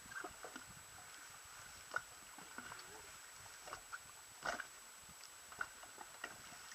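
Faint, irregular clicks and knocks on a small rigid-inflatable boat during a fish fight, the strongest about two seconds in and again a little past the middle, over a steady thin high whine.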